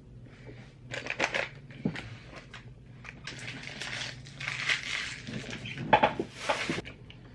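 Chewing and wet mouth noises from a mouthful of chewy candy cubes, coming in uneven bursts, the loudest near the end.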